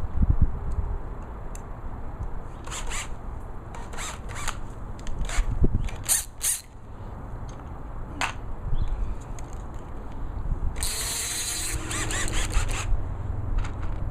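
Power drill's chuck being ratcheted tight on a masonry bit in several short bursts of clicking, then the drill runs for about two seconds near the end. Wind rumbles on the microphone throughout.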